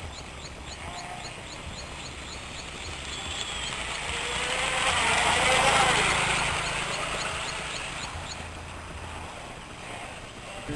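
Electric radio-controlled hydroplane boat running on the water: its motor whine and spray swell to a peak about halfway through, then fade as it passes and moves off.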